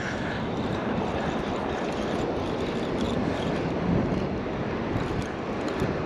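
Steady rush of ocean surf and wind on the microphone while a surf spinning reel is cranked to retrieve a crab snare, with a few faint ticks.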